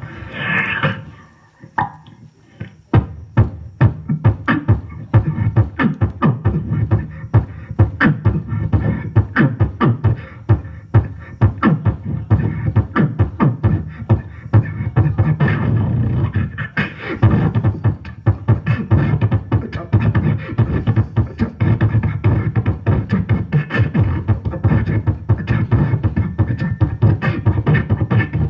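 Beatboxing: mouth-made percussion, with sharp clicks and snare-like hits over a steady low bass hum. After a short vocal sound and a brief pause it settles about three seconds in into a fast, even beat.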